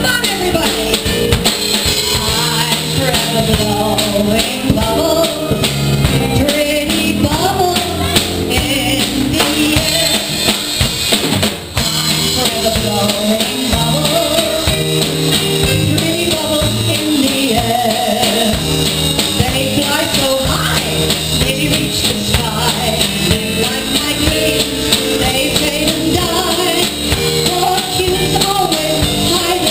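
Live band music: a singer's voice over drum kit and electric keyboard, played loud through a PA.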